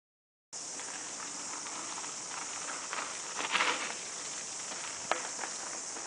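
Mountain bike tyres crunching over a gravel trail as a rider passes close by, loudest about three and a half seconds in, over a steady high hiss. A single sharp click follows about five seconds in.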